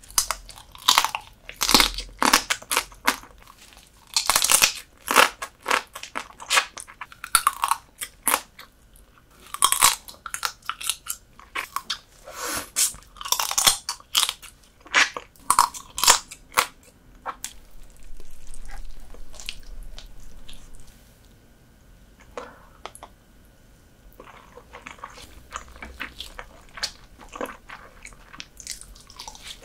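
Close-miked biting and chewing of soy-sauce-marinated horsehair crab: crackly crunches of the thin shell and wet chewing, dense through the first half. A little past the middle comes a few seconds of steady hissing sound, and the chewing goes on quieter and sparser after it.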